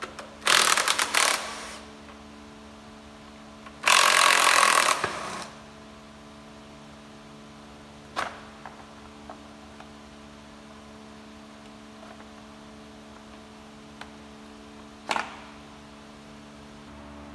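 Cordless impact wrench hammering in two bursts of about a second and a half each, near the start and about four seconds in, loosening bolts on an engine. Two sharp knocks follow, about eight and fifteen seconds in, over a steady low hum.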